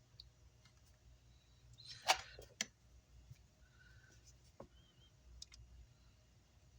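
Light clicks and taps of small electronic parts and hand tools on a workbench, with a brief scrape and two sharper clicks about two seconds in.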